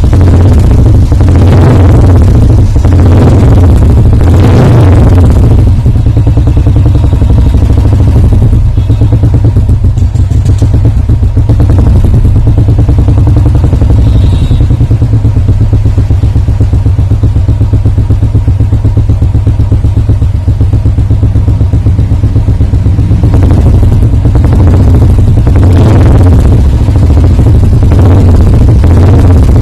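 Royal Enfield Classic 350's single-cylinder engine running through an aftermarket Wild Bore exhaust silencer, with a steady low thump. It is revved several times in the first few seconds and again near the end.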